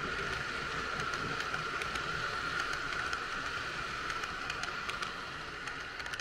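Model freight train of stake wagons loaded with logs rolling past on Märklin three-rail track: a steady rolling rattle of metal wheels with a high whine and many small clicks over the track, easing off near the end as the wagons move away.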